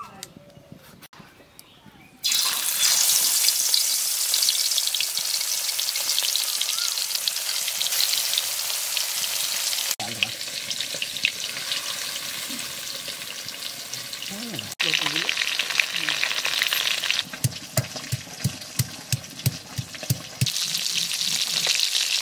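Fish frying in hot oil in an aluminium kadai: a loud, steady sizzle that starts about two seconds in, jumping in level now and then. Near the end a quick run of soft thumps sounds under the sizzle.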